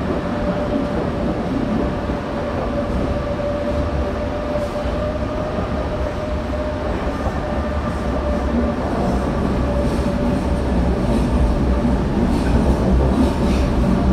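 Berlin U-Bahn small-profile G I/1E train running, heard from inside the car: a steady rumble with a constant whine, getting a little louder toward the end, with a few clacks over the rails near the end.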